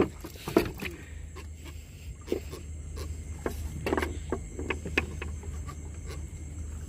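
A freshly landed catfish on wooden boat planks, flopping with scattered knocks and a few short low sounds.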